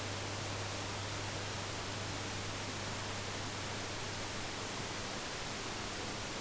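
Steady background hiss with a low hum underneath and no distinct event: room tone and recording noise.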